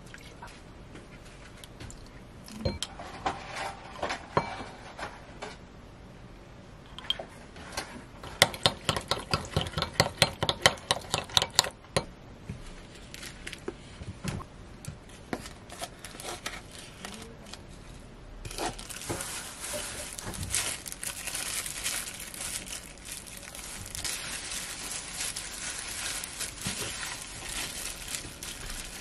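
Metal spoon stirring thick sauce in a glass bowl, clinking quickly against the glass about five times a second for several seconds. About two thirds of the way in, this gives way to the steady crinkle of a plastic glove and wet squishing as hands work sliced pork belly into the red pepper-paste marinade.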